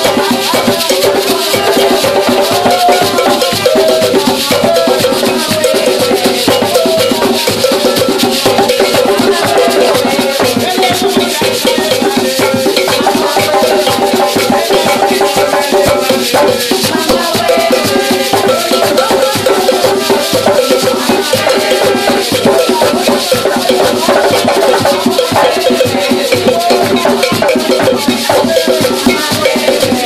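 Gwo ka music played on ka hand drums and a djembe, with calabash shakers (chacha) rattling along in a steady, dense rhythm.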